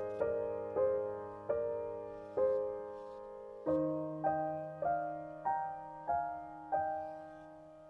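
Background music: slow, gentle solo piano, single notes struck about every half second to a second and dying away over held low notes.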